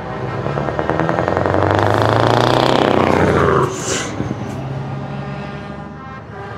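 Heavy truck's diesel engine through open exhaust pipes, the revs building to a loud peak and then dropping sharply about three and a half seconds in as the throttle is released, the pitch falling away after.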